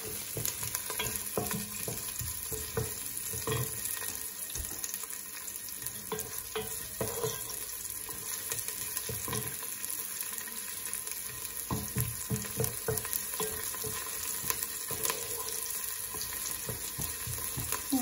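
Chopped shallots and garlic sizzling steadily in hot olive oil in a pot, with a wooden spoon stirring through them and scraping the pot now and then.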